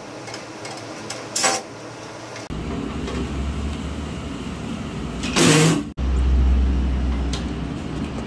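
Short runs of a DeWalt cordless drill backing out bracket screws, one about one and a half seconds in and a louder one a little past five seconds. A steady low rumble sets in suddenly a couple of seconds in.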